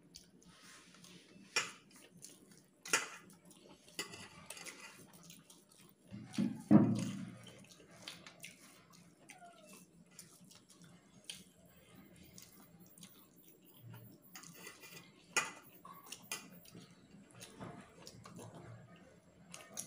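Fingers mixing rice on a steel plate, with scattered clicks and taps of hand and food against the metal. One louder thump comes about seven seconds in.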